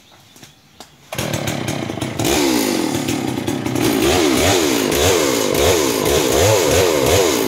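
A chainsaw comes on suddenly about a second in, then is revved up and down over and over, its pitch rising and falling about twice a second.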